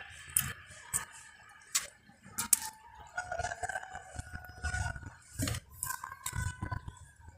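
Close-up mukbang eating sounds: someone chewing pig feet, with about half a dozen sharp clicks and taps of dishes or cutlery.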